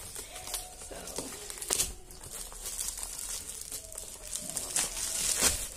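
Plastic packaging crinkling and rustling as a parcel is unwrapped by hand, with irregular crackles and a few sharper tearing sounds.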